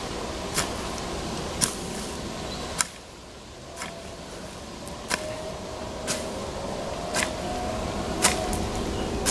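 Sharp clicks recurring about once a second over a steady background noise, which dips briefly about three seconds in.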